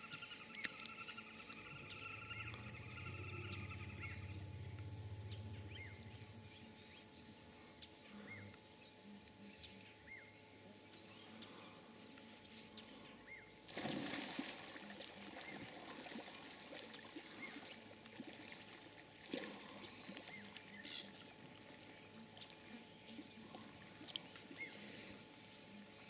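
An African elephant feeding in a tree: scattered snaps and rustles of branches, with a louder crackle about halfway through and a few sharp clicks after it. A steady high-pitched drone runs underneath.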